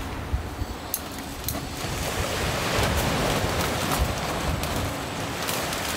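Waves washing on a beach, with wind buffeting the microphone and a few light clicks.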